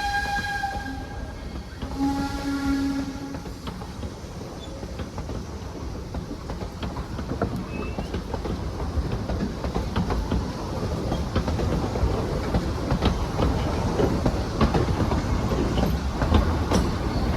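Baldwin narrow-gauge steam locomotive's whistle, ending about a second in, followed by a second short blast. Then the train rolls on with a steady low rumble and sharp wheel-on-rail clicks that grow more frequent in the second half.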